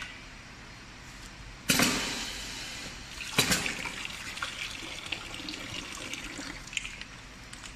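Pneumatic liquid filling machine cycling. There are two sudden sharp hisses of compressed air, the first under two seconds in and the second about halfway, and liquid rushes and splashes as it is dispensed through the nozzle into a plastic pouch.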